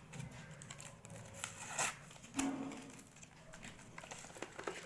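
Packaging crinkling and tearing as a package is opened by hand: irregular crackles, with two louder rips about two seconds in.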